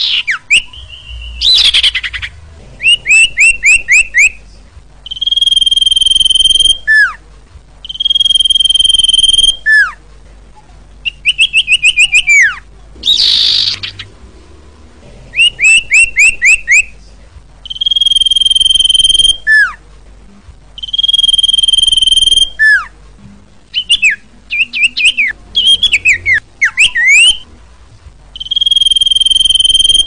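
A common iora sings a loud, repeated song. Held whistled notes about a second long each end in a quick downward slur, and they alternate with runs of four or five quick rising chirps. A couple of short harsh, rasping notes come near the start and about halfway through.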